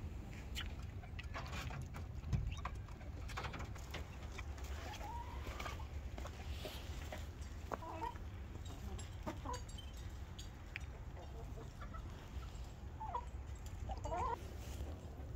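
A flock of hens clucking now and then while they feed, with a few short clucks spread through and several close together near the end. There are scattered clicks early on, over a steady low rumble.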